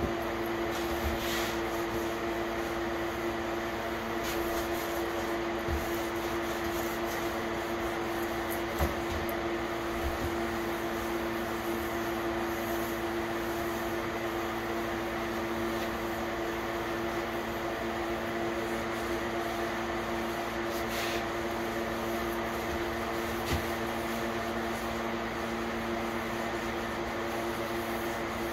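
Steady hum of a running electric machine, like a shop fan or air cleaner, holding a few constant tones over an even whir, with a few faint knocks.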